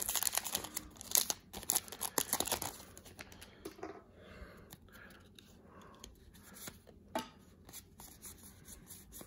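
Foil booster-pack wrapper crinkling and tearing as it is pulled open and the cards slid out, loudest in the first three seconds. After that comes fainter rustling and a few light clicks of trading cards being handled.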